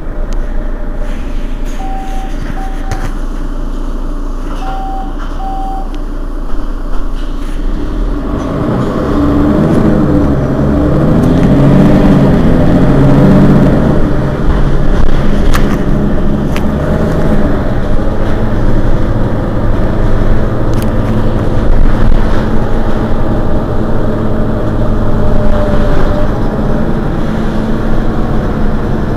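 Mercedes-Benz Citaro city bus diesel engine idling, with two pairs of short high beeps. About eight seconds in the engine takes load and the bus pulls away, its pitch rising and dropping through several gear changes, then running on steadily.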